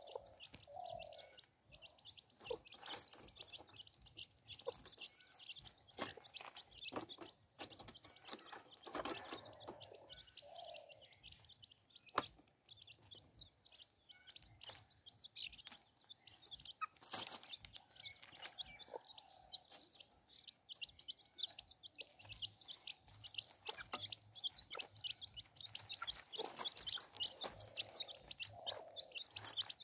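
A brood of chicken chicks peeping constantly, many short, high, falling chirps overlapping one another, with a few lower calls from the mother hen now and then.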